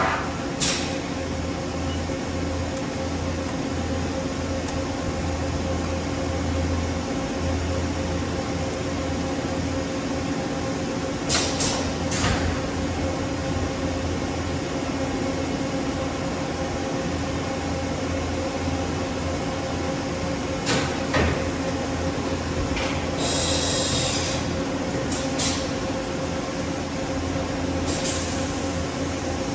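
Mori Seiki MH-63 horizontal machining center running under power: a steady hum with several held tones. A few sharp clicks come about 11 and 21 seconds in, and a brief hiss about 23 seconds in.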